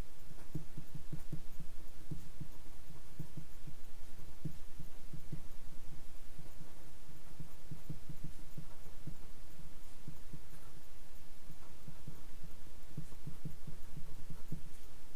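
Felt-tip marker writing on paper laid on a desk, heard as soft, irregular low knocks and scrapes. Under it runs a steady low hum whose loudness pulses rapidly.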